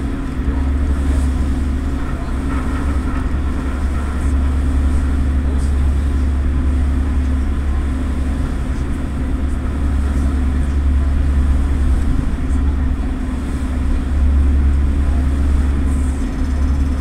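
Passenger ferry's engines running with a steady low hum, heard on board during the crossing.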